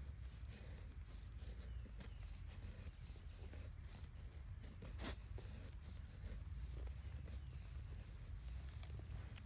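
A knife blade shaving wood from a stick: a run of short scraping strokes, the sharpest about five seconds in.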